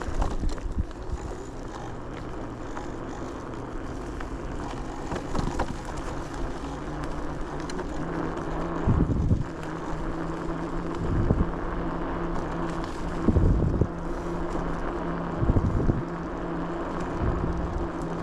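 A motor vehicle running, its engine a steady low hum that settles into a clear pitch about eight seconds in, with repeated gusts of wind buffeting the microphone.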